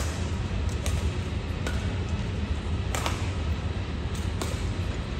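Badminton hall ambience: a steady low hum with a handful of sharp clicks and taps scattered through it, the strongest about three seconds in.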